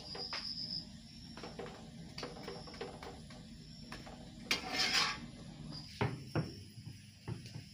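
A metal spatula scraping and tapping on a hot tawa as an aloo paratha is pressed and fried, with a short hiss about four and a half seconds in, the loudest moment. Near the end, a rolling pin knocks dully on a wooden board while dough is rolled out.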